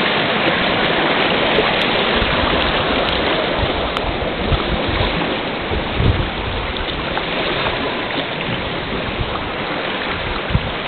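Rushing water of shallow river rapids, a steady loud rush, with a few brief low bumps.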